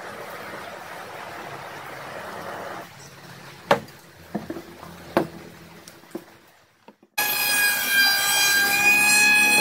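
Handheld butane torch hissing as it chars a pine board, the hiss dropping away about three seconds in, followed by a few sharp knocks as the board is handled. About seven seconds in, a loud, steady whine of several tones starts abruptly.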